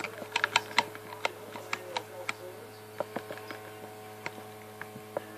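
Game controller buttons and sticks clicking under a player's thumbs: quick clicks, several a second at first, then sparser. A faint steady hum runs underneath.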